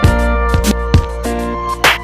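Background music with a steady drum beat and held pitched instrument notes.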